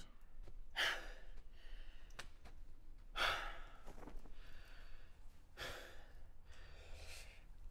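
A man breathing heavily: slow, loud breaths about one every two and a half seconds, with softer breaths in between.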